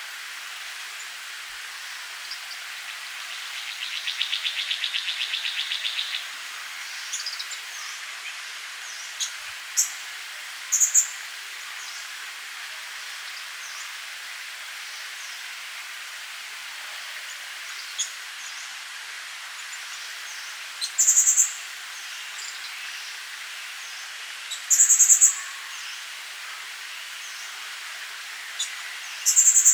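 Small backyard birds chirping: a few short, high chirps that come singly or in quick pairs, and a rapid trill about four seconds in, over a steady background hiss of insects.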